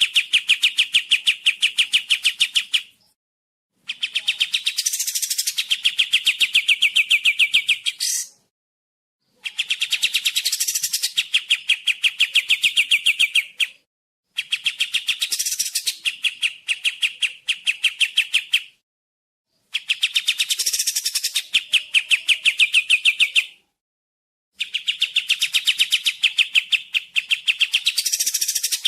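Kapas tembak bird song: a fast, rapid-fire trill of sharp chips, given in phrases of about five seconds and repeated six times with short silent gaps between.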